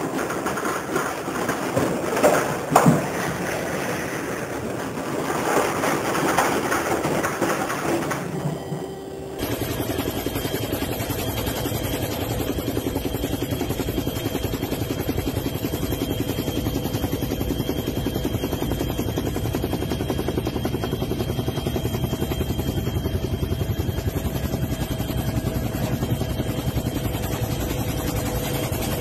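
Storm wind and heavy seas around a container ship, with a couple of sharp knocks about two to three seconds in. After about nine seconds it cuts to the steady drone of a helicopter's engine and rotor, with a faint steady whine over it.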